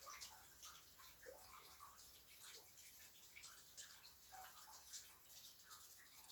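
Faint light rain: scattered single drops landing irregularly, several a second.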